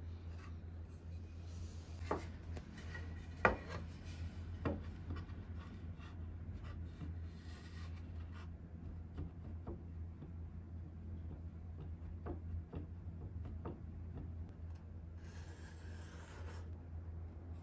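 Hands rubbing over a pine board and a pencil scratching marks on the wood, with a few light taps, the sharpest about three and a half seconds in. Near the end a longer scratch as the pencil is drawn along a steel ruler. A steady low hum lies underneath.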